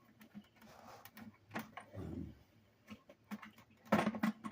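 Small toy sliding door clicking and knocking as it is pushed along its rough, partly melted plastic rail. There is a dull bump about two seconds in and a quick run of clicks near the end.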